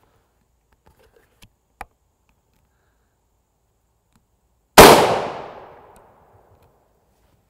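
A single rifle shot from a Mosin Nagant M44 firing 7.62x54R: one sharp crack a little under five seconds in, ringing out and fading over about a second. Two faint clicks come before it.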